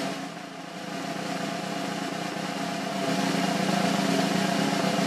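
A sustained drum roll that grows gradually louder.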